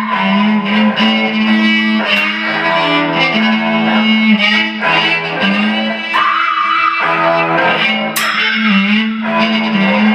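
Instrumental passage of live violin and guitar: the violin bowed hard over a held low note rich in overtones, with a long wavering high note about six seconds in.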